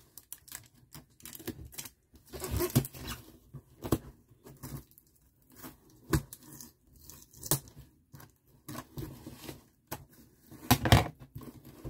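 Scissors and hands cutting and tearing open a cardboard toy package: scattered snips, scrapes and tearing noises with short pauses, the loudest about two and a half seconds in and again near the end.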